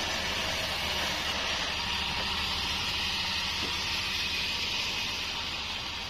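Band sawmill running: a steady hiss from the spinning blade over a constant low hum from the drive.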